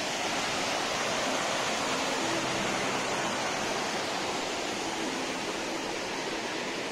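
Steady rushing of mountain creek water, an even hiss with no breaks.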